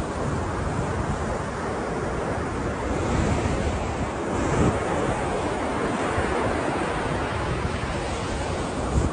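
Ocean surf washing steadily, a continuous rushing of breaking waves with a deep rumble, swelling slightly about midway.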